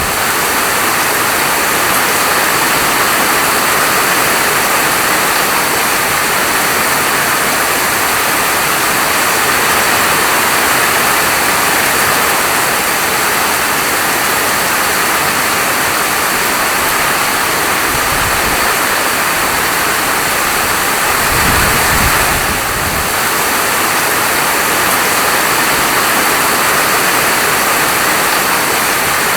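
Steady heavy rain falling, an even rushing hiss. A low rumble swells briefly twice past the middle.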